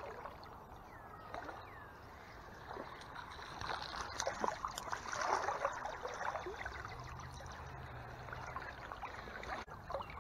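Small rainbow trout splashing and thrashing at the water's surface as it is drawn to the landing net, over the steady flow of the stream. The splashing is heaviest about four to six seconds in.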